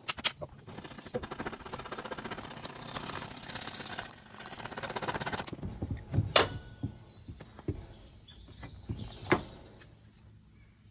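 Coping saw rasping through the end of a wooden crown molding in quick strokes, cutting the back cut of a coped joint; near the middle the sawing stops and a few sharp knocks follow, the loudest about six seconds in.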